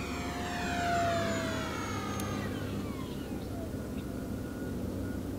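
Electric motor and propeller of an E-Flite P-51D Mustang 1.2 m foam RC warbird whining as it flies past. The pitch falls steadily over about three seconds and the sound is loudest about a second in.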